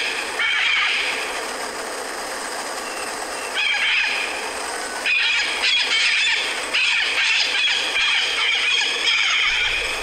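Golden-plumed parakeets calling: harsh, scratchy screeches in bouts, a short one near the start, another about four seconds in, then a longer run through the second half.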